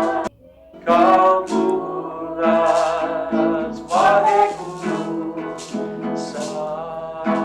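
Music: acoustic guitar strummed in chords, with a voice singing along. The sound drops briefly just after the start, then the strumming resumes.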